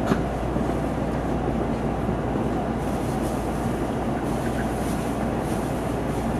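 Shinkansen bullet train running steadily, heard from inside the passenger cabin as it rolls along the platform on arrival at the station, with a constant low hum and one short click right at the start.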